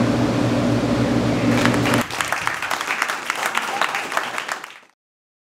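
A steady low room hum that stops abruptly about two seconds in, giving way to a small group of people clapping, which fades out about five seconds in.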